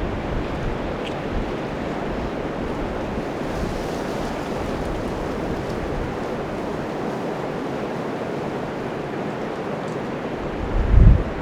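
Storm wind blowing steadily in a snowstorm, with a gust buffeting the microphone near the end.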